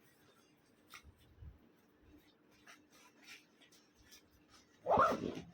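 Soft rustling and light clicks of items being handled and taken out of a bag, then a dog barks loudly near the end.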